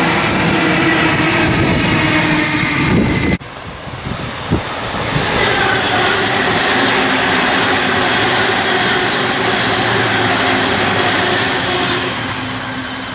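Double-deck electric suburban trains passing close by: wheel-on-rail rumble with a steady whine of several held tones. The first pass stops abruptly about three seconds in, a second train takes over with a single click soon after, and the sound fades near the end as it moves away.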